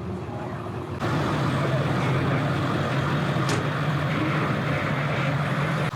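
Truck engine running steadily at low speed, getting louder about a second in, with a brief high squeak near the middle.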